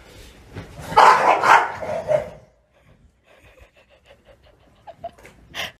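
Bulldog barking: a quick run of three or four loud barks starting about a second in, then only faint, quick rhythmic sounds.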